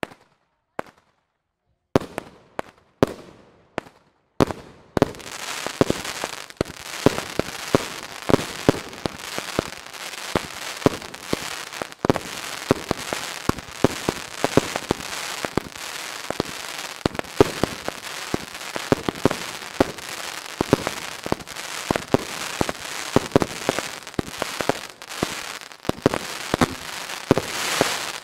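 Fireworks going off: a few separate sharp bangs, then from about five seconds in a dense, continuous barrage of crackling and rapid bangs that builds toward the end.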